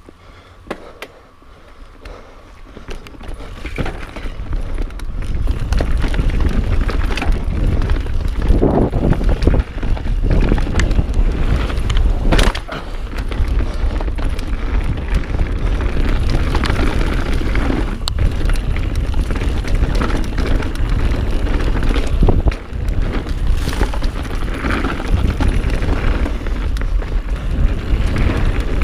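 Mountain bike riding fast down a dirt singletrack: wind rumble on a chest-mounted camera's microphone, tyre noise on dirt, and repeated knocks and rattles from the bike over bumps, building up over the first few seconds as speed picks up.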